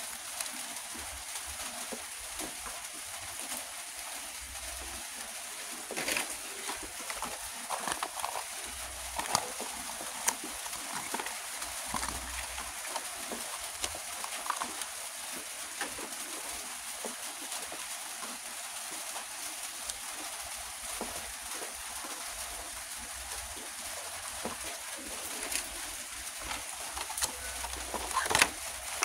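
Die-cast toy cars and their plastic blister packaging being handled: scattered light clicks and crinkles over a steady hiss, with a quicker run of crinkling and clicking near the end.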